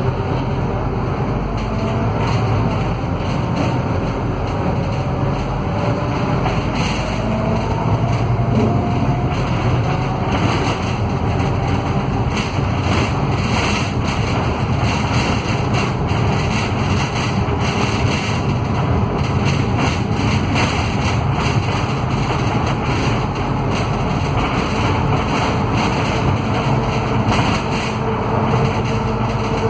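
Scania K320UA articulated bus heard from inside the passenger cabin while under way: its DC09 five-cylinder diesel runs steadily, and a faint whine from the hub-reduction rear axle rises and falls in pitch with road speed.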